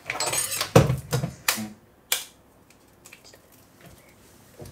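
Clatter and a few sharp knocks of kitchen things set down on a wooden worktop, an electric hand mixer among them, over about the first two seconds. The loudest knock comes a little under a second in and a last sharp click at about two seconds, followed by only faint light taps.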